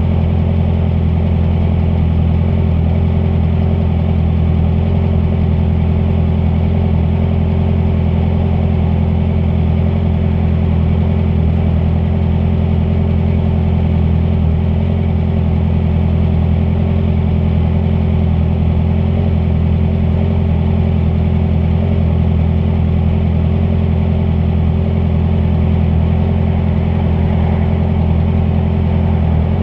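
Honda CBR650F motorcycle's inline-four engine running at a steady, unchanging pitch, loud on the microphone.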